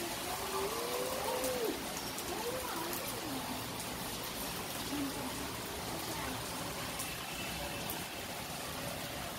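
Heavy rain falling steadily, an even hiss of rain with occasional sharp ticks of drops close by. In the first three seconds a few short wavering tones rise and fall over the rain.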